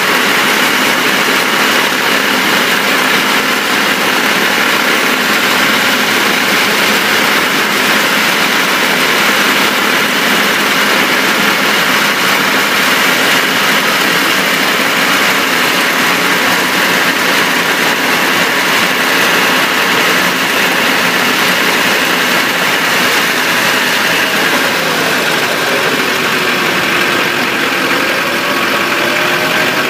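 Road and driveline noise under a moving Chevrolet Silverado 2500HD beside its spinning driveshaft: a steady rush with a faint whine. Near the end the whine falls as the truck slows, then starts to rise again.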